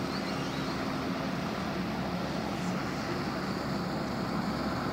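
Steady, even room din in a busy club, with a faint low hum underneath and no distinct shots or bangs.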